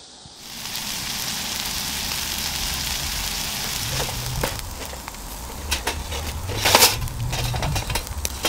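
Lamb rack chops sizzling on a grill grate over charcoal, a steady hiss with fat crackling and popping; one sharp pop about seven seconds in.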